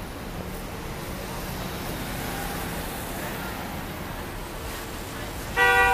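Steady city traffic noise from slow-moving cars and taxis on a wet street, with one short, loud blast of a vehicle horn near the end.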